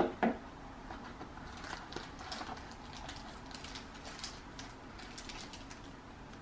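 Two quick knocks on a desk, then light plastic clicking and rustling as two GoPro batteries in their plastic cases are picked up and handled.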